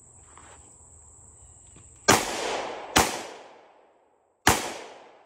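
Three shots from a 5.7×28mm pistol. The second comes under a second after the first and the third about a second and a half later, and each trails off in an echo.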